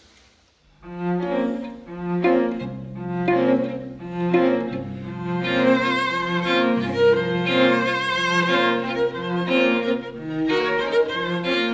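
Solo cello and string quartet start a dance tune about a second in: a pulsing, repeated bowed figure over a held low note, with violins joining higher up about halfway through.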